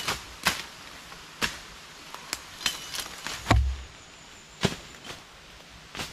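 Machete chopping through forest undergrowth: sharp, irregular strikes of the blade on stems and brush, about ten in all, with a heavier low thud about halfway through.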